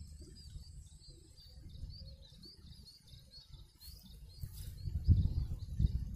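Birds chirping in quick repeated short notes, with a thin steady high insect-like whine that stops about a second in. An uneven low rumble underneath grows much louder about five seconds in.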